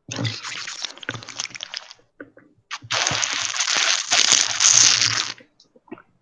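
Someone drinking water close to the microphone: sloshing and crinkling noise in two stretches, the first about two seconds long and the second, louder, about two and a half seconds long.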